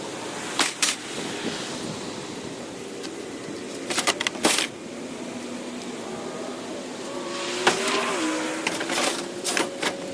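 Vehicle engine running while driving, its pitch steady and then stepping down about eight seconds in, as at a gear change. Sharp knocks and rattles come several times: about half a second in, around four seconds in, and near the end.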